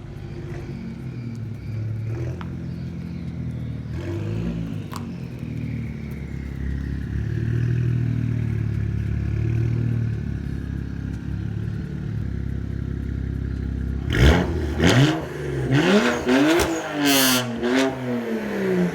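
Straight-piped BMW N54 twin-turbo inline-six (no cats, resonator or muffler) running steadily, then revved in a series of quick rises and falls from about fourteen seconds in, with sharp cracks and pops as the revs drop.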